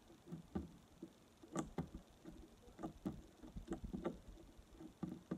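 Soft slime being kneaded and squeezed by hand, giving irregular little squelches and pops, several a second.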